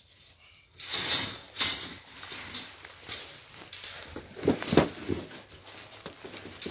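Footsteps crunching and rustling through dry fallen leaves, starting about a second in, with an uneven rhythm of close, sharp crunches.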